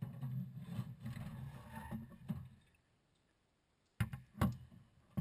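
Radiator being slid back and lifted out of a car's engine bay: a low, uneven scraping and rubbing for about two and a half seconds, then a few sharp knocks near the end as it comes free.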